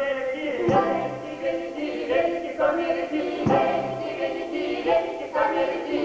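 Russian folk choir of men and women singing together, with a deep thump about every three seconds beneath the voices.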